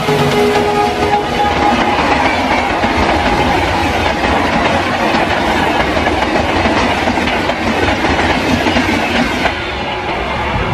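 Indian Railways train passing at speed close by: a loud, steady rush of wheels clattering over the rail joints. The last of its horn dies away in the first second, and the rush eases slightly near the end.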